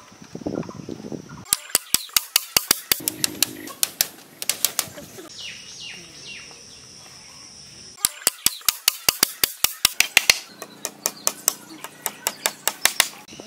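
Rapid sharp knocks, about six a second, in two long runs: a small hammer driving nails into split bamboo strips.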